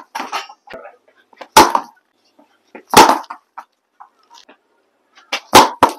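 Wooden cricket bat striking a tennis ball hung on a rope in knocking practice: three loud, sharp cracks, the last near the end, with fainter knocks between them.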